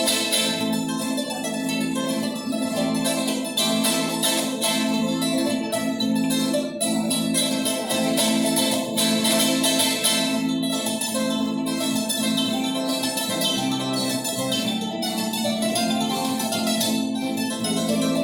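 Acoustic music played on plucked string instruments, with a quick run of plucked notes over held, ringing tones.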